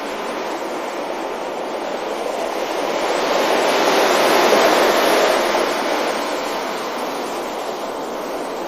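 Ocean waves breaking on a beach: a steady rush of surf that swells to a peak about four to five seconds in, then falls back.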